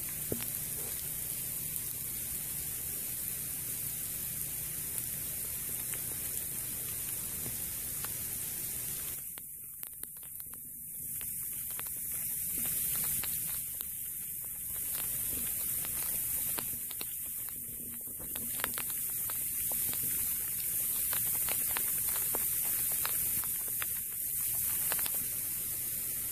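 Freezing rain and sleet falling at night: many small sharp ticks of ice pellets striking, more of them in the second half, over a steady high-pitched hiss. The recordist hears this hiss as an unexplained 'frequency' that turns up when recording freezing rain and sleet.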